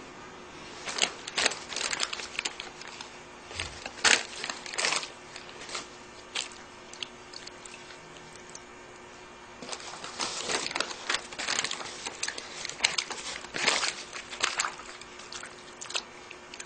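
Wet paper being crumpled and squeezed by hand in a metal bowl of water: irregular crackling and squishing, in one stretch about a second in and another from about ten to fifteen seconds in.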